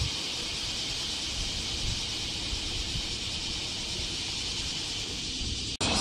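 A steady, high, shimmering hiss from a distant chorus of bear cicadas (kumazemi) singing together, with a low rumble underneath. The sound drops out briefly near the end and comes back louder.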